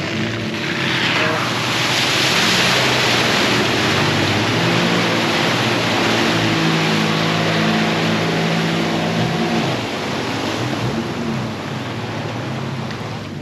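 Jeep Wrangler's engine pulling hard through a muddy water hole, its note stepping up and down, with the tyres churning and splashing through mud and water. The engine holds a steady note for a few seconds, then eases off about ten seconds in.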